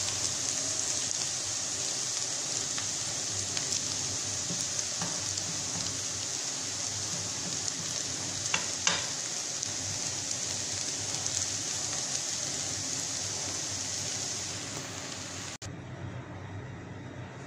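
Instant noodles sizzling as they stir-fry in a nonstick frying pan, with a slotted spoon tapping the pan a few times a little before the middle. The sizzling cuts off abruptly near the end, giving way to a quieter steady hiss.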